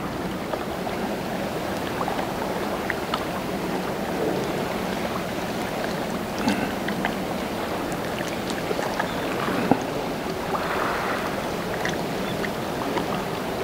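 Steady rush of tidal sea water flowing and lapping along a stone embankment, with a few faint ticks scattered through it.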